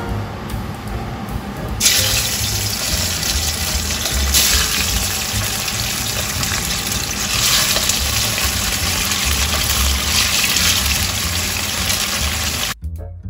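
Fish pieces sizzling in hot oil in a frying pan: the sizzle starts suddenly about two seconds in and swells again every few seconds as more pieces go into the oil, then cuts off near the end. Soft background music runs underneath.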